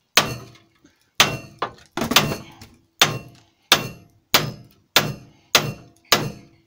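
Hammer blows on a steel socket held over the bottom ball joint of a Honda Civic EG front knuckle clamped in a vise, driving the worn ball joint out. About a dozen sharp strikes come at an uneven pace of roughly one to two a second, each with a brief metallic ring.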